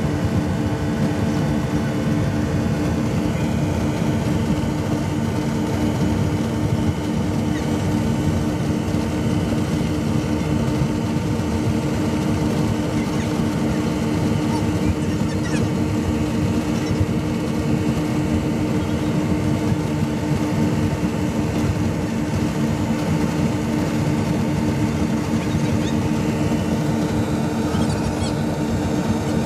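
Twin 250 hp Yamaha outboard motors on a wooden speedboat running steadily at cruising speed, a constant loud drone with no change in pitch.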